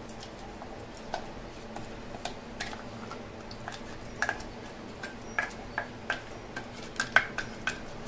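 A metal spoon tapping and scraping against the mixer jar and bowl as freshly ground chutney is scooped out: a run of light clicks that come more often in the second half.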